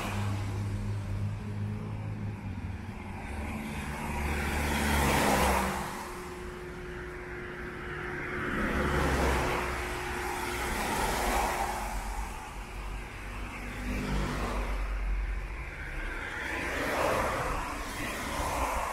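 Cars passing one after another on a wet road, their tyres hissing on the wet asphalt in swells that rise and fade about five times, the loudest about five seconds in.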